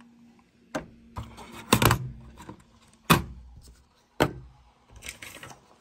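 Handling noise: about five sharp knocks and clunks of things being moved about, the loudest about two and three seconds in, with a brief rustle near the end and a faint steady hum underneath.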